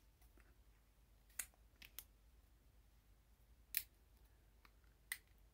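Plastic screw cap being twisted open on a small juice-shot bottle: about five short, sharp clicks spaced out over near silence.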